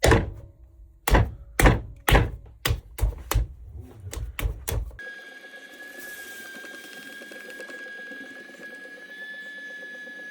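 About ten heavy thuds at uneven intervals over the first five seconds. Then, from an abrupt cut, a steady high whine with a faint hum under it.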